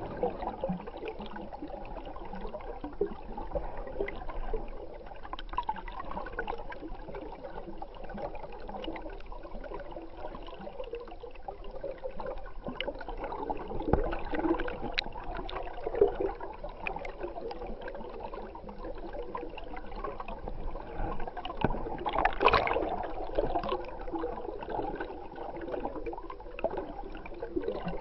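Stream water gurgling and flowing, heard muffled through an underwater camera, with a few louder swirls in the second half.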